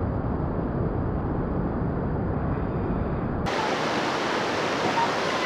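Steady rushing noise, dull and deep at first. About three and a half seconds in it changes abruptly to the brighter hiss of flowing river water.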